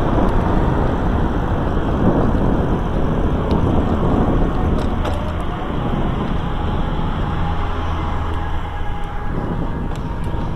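Wind buffeting the microphone of a camera riding along a sidewalk, a steady low rumble, with a car passing in the middle.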